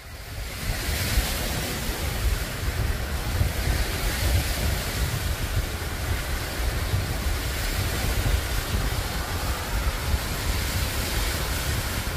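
Ocean surf washing onto a beach, with strong wind buffeting the microphone in uneven low rumbles; it fades in over the first second.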